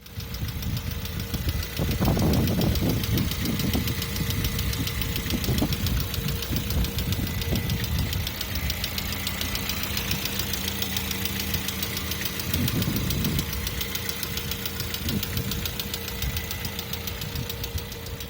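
Lada VAZ-21127 1.6-litre sixteen-valve four-cylinder engine running with a rapid, even knock, an unexplained noise whose cause the owner is asking about. Twice the low rumble swells up briefly.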